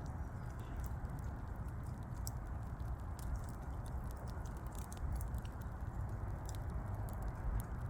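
Burning wood crackling, with many small irregular pops and snaps over a steady low rumble.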